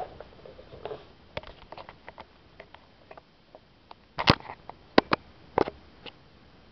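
Camera handling noise: scattered clicks, taps and knocks as the camera is moved about and bumped up against a cat, with a cluster of louder knocks about four seconds in and a few more sharp ones over the next second and a half.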